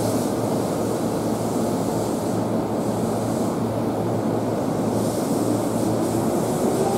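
Seibu 2000 series electric commuter train starting to pull away from the platform: a steady hum from the standing train, then its motors and wheels on the rails as it begins to roll, with a faint rising tone near the end as it gathers speed.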